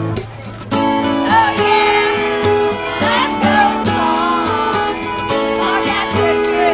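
Karaoke backing track playing loud through the bar's speakers, with a group singing along into microphones. The music dips briefly at the very start and comes straight back in under a second.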